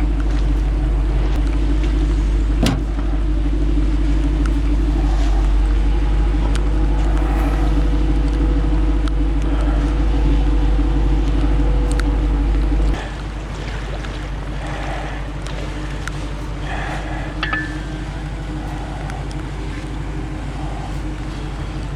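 A vehicle engine idles steadily under a low, heavy rumble. The sound drops noticeably in level about thirteen seconds in and carries on more quietly after that.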